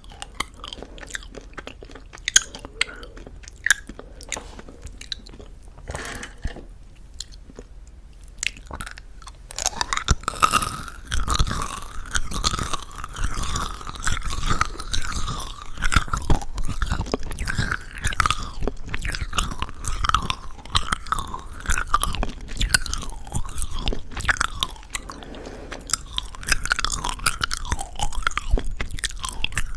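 Close-miked mouth sounds of eating a chewy plum jelly candy with a crunchy sugar coating: sparse wet clicks for the first ten seconds or so, then steady, denser crunchy chewing.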